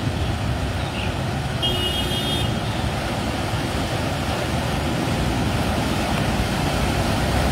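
Cars and motorbikes driving through shallow floodwater: steady traffic noise of engines and tyres pushing through water, with a brief high tone about two seconds in.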